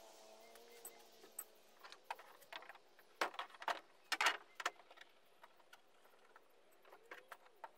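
Scattered clicks, knocks and light clatter of tools and hardware being handled while working on a canoe gunwale, loudest in a cluster about three to four and a half seconds in.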